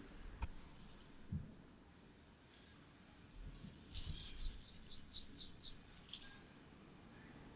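Metal ice cream scoop scraping through firm homemade vanilla ice cream: a couple of small clicks, a brief scrape, then a quick run of short crisp scrapes, about four a second, for about two seconds past the middle.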